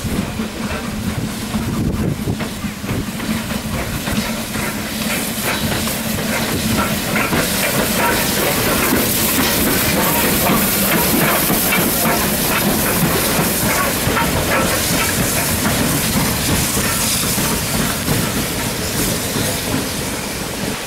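BR Standard Class 9F 2-10-0 steam locomotive running slowly past on its own, with steam hissing and its wheels and running gear clattering. The sound grows louder as it comes close about halfway through, then fades as it moves away.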